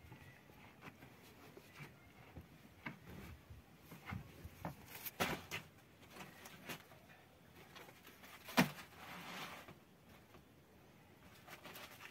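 Handling flatbread dough at a clay bread oven: soft pats, rustles and scattered light knocks, with one sharper knock about eight and a half seconds in.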